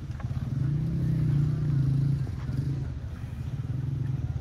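Engine running with a rapid low throb that grows louder for about a second and a half, starting about half a second in.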